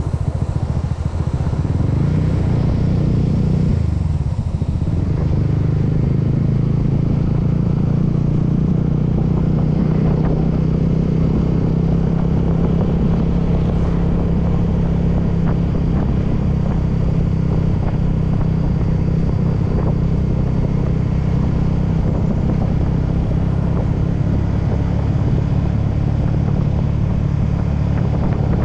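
Honda scooter's engine running steadily while riding along the road. The engine note shifts briefly a few seconds in, then holds steady.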